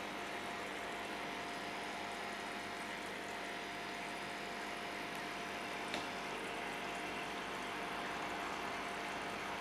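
Steady running noise of aquarium equipment: water moving and a pump's faint hum. There is a single short click about six seconds in.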